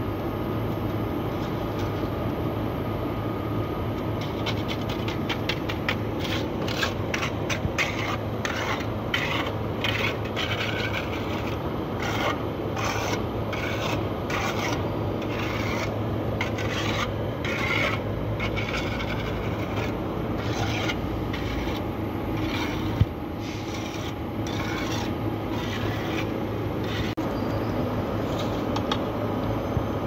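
Repeated scraping strokes of a metal scoop through fresh concrete in a steel tray, roughly one or two a second, over a steady low machine hum.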